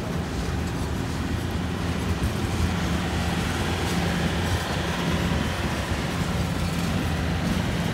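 Freight train flatcars rolling past close by: steady noise of steel wheels running on the rails.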